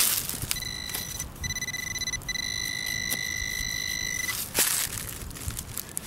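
Handheld metal-detecting pinpointer sounding a steady high buzzing tone for about four seconds, broken twice by short gaps, signalling metal close by in the hole. Hands dig and scrape in loose soil around it, with a louder rustle near the end.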